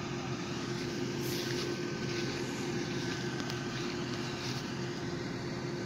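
Diesel farm tractor engines running with a steady drone.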